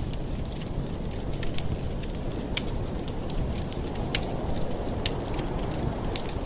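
Campfire burning: a steady low rumble of flames with sharp, irregular crackles and pops of the burning wood.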